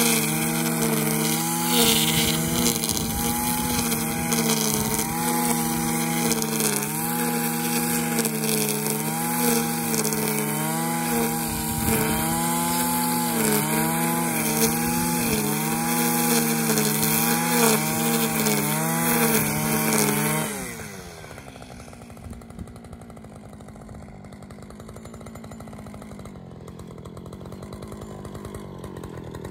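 Husqvarna 545RX two-stroke brush cutter at full throttle, its trimmer line cutting grass, the engine note wavering slightly under load. About two-thirds of the way through the throttle is released and the engine winds down to a quieter idle.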